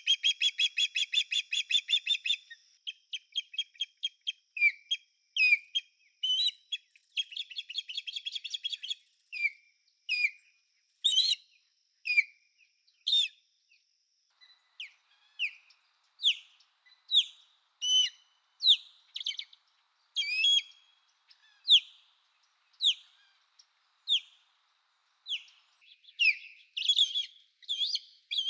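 Osprey calling: high, whistled chirps, in fast runs of about ten notes a second at the start and again around eight seconds in, then single down-slurred chirps about one a second.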